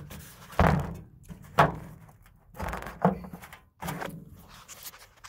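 A series of dull thunks and knocks, about one a second, from a reptile enclosure being handled as its mesh screen lid is set back and closed.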